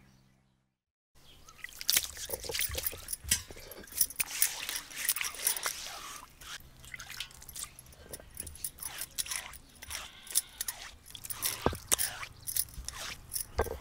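Water splashing and trickling as a flat stone grinding slab (pata) is washed by hand, with many short knocks and clatters.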